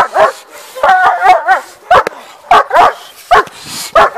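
German Shepherd barking repeatedly and excitedly at a helper's bite sleeve during protection training, with a quick run of higher yips about a second in.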